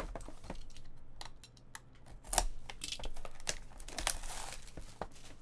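Shrink wrap on a cardboard trading-card box being slit with a box cutter and pulled off, with plastic crinkling and scattered clicks and scrapes of the box being handled. The loudest crackle comes about two and a half seconds in.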